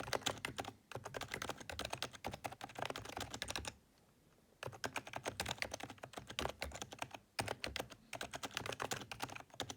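Typing on a PFU Happy Hacking Keyboard Professional2 Type-S, with its Topre electrostatic capacitive switches in the silenced Type-S version. Fast runs of keystrokes, with a pause of about a second near the middle.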